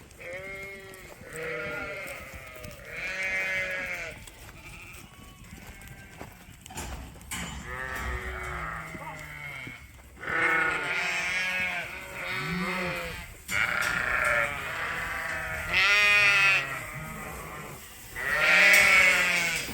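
A flock of ewes bleating, many voices calling one after another and overlapping, each call a quavering bleat; the loudest calls come near the end.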